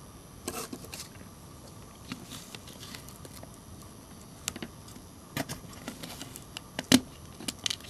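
A knife blade pries at the battery contact block in an LG B1300 phone's plastic rear housing, making a series of scattered small clicks and scrapes as the old block is worked loose. The sharpest snap comes about seven seconds in.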